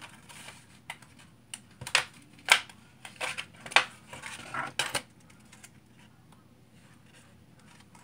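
A face-paint crayon box being pried open by hand: a scatter of sharp clicks and crackles, about eight over five seconds.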